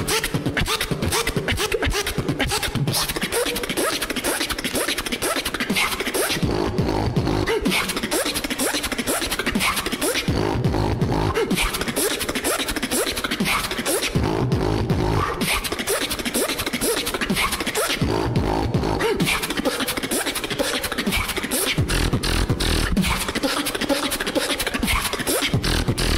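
Solo beatboxing into a handheld recorder: a fast, steady run of mouth-made kick, snare and hi-hat clicks, broken every few seconds by deep bass notes.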